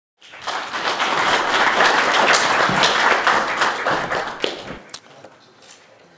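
Audience applauding, dying away after about four and a half seconds, with one last clap.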